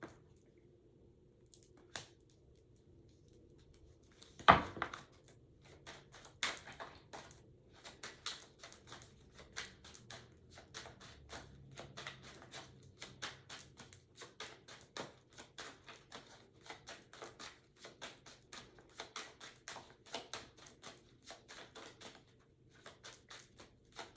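Tarot cards handled and shuffled by hand: a long run of light card taps and clicks, a few each second, with one louder knock about four and a half seconds in.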